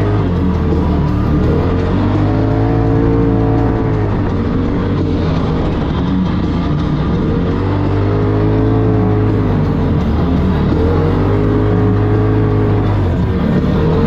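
Polaris RZR Turbo S side-by-side's turbocharged engine revving, its note rising and falling about three times, under loud rock music.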